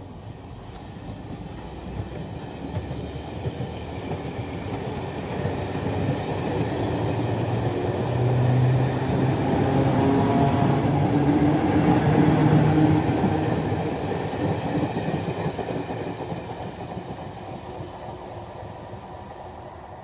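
Electric train approaching on the rails. Its running noise swells to its loudest about ten to thirteen seconds in, with a low hum underneath, then dies away again.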